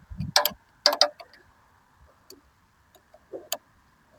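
A few sharp metallic clicks and taps from hand tools working a bolt on a lawn mower's battery hold-down, in small groups about half a second in, about a second in and about three and a half seconds in.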